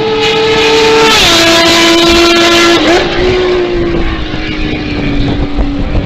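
Kawasaki Z1300 inline-six motorcycle engine running hard at high revs. Its exhaust note drops in pitch about a second in, then eases slowly lower.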